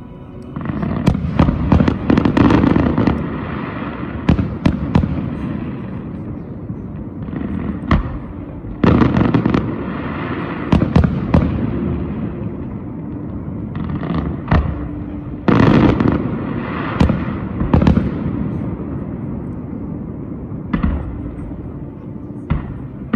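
Fireworks display: aerial shells going off with sharp bangs and crackling, in several dense volleys with shorter lulls between them.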